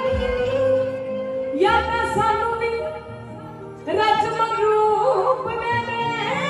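A woman singing a Punjabi song live into a microphone over a PA system, with instrumental backing. A long sung phrase starts about a second and a half in, and after a short quieter dip another begins about four seconds in.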